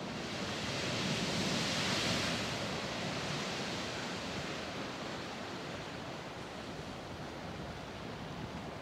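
Morning Geyser erupting: a steady rush of water and steam, loudest about two seconds in and then easing slightly.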